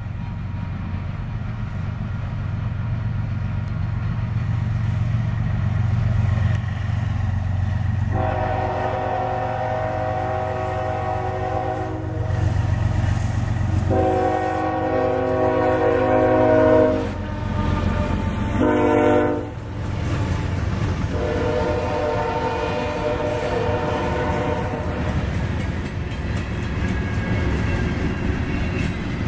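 Freight diesel locomotives rumble as they approach and pass, while the lead GE ES44AC's air horn sounds two long blasts, a short one and a final long one: the grade-crossing signal. Freight cars then roll by on the rails near the end.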